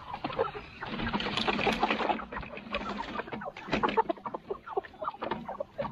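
Meat chickens clucking, many short calls overlapping, thickest from about a second in to about three seconds.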